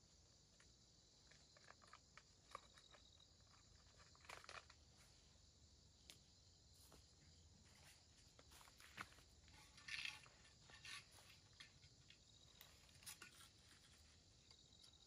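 Faint steady insect drone with soft rustles and small clicks scattered through it, the loudest cluster about ten seconds in.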